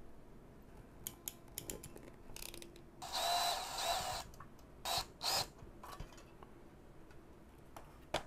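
Crimped wire terminal being pushed onto the pin of a toggle switch in an aluminium panel: a metal-on-metal scrape about three seconds in, lasting about a second, then two shorter scrapes, among light clicks from handling the wires.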